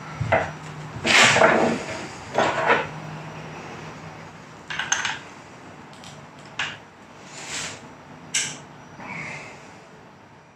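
Rebuilt Triumph Daytona 955i front fork leg being stroked by hand, its damper oil squelching through the valving in a series of short noisy strokes of uneven length, with a few sharp metallic clicks in the second half. The fork is being tested for damping after its adjusters were set.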